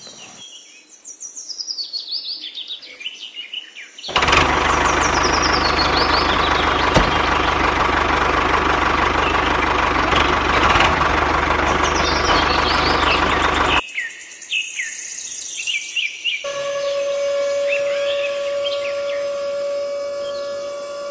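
Birds chirping, then a loud, steady motor noise for about ten seconds as the miniature tractor pulls the grain trailer. It cuts off suddenly, the chirping returns, and then a steady high whine from a small electric motor starts while the trailer bed tips up.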